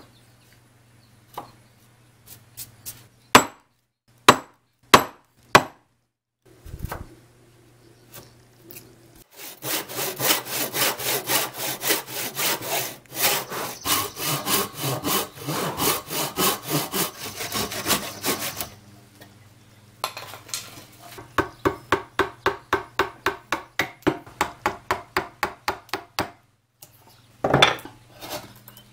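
Hand saw cutting a wooden block, in two runs of rhythmic back-and-forth strokes at about three strokes a second: the first run lasts about nine seconds, the second is shorter and more even. A few sharp knocks come before the sawing, and one more near the end.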